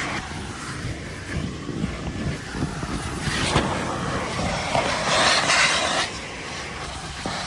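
Car wash vacuum hose running and sucking at the car's interior, a steady hiss that grows louder for a few seconds in the middle as the nozzle works over the upholstery.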